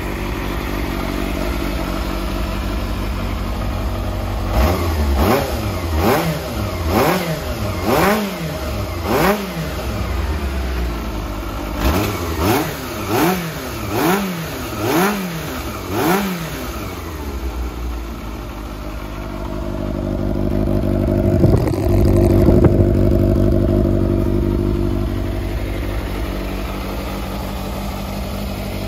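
Yamaha XJR400R's air-cooled inline-four running through a Yoshimura titanium full exhaust system: idling, then revved in two runs of about six quick throttle blips each, then one slower, longer rev that rises and falls about twenty seconds in before it drops back to idle.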